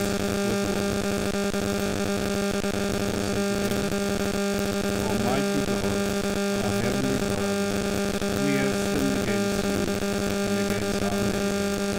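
A steady electrical hum with a buzzy edge, strong and unchanging, typical of mains hum in the sound system. A man's reading voice is faint beneath it.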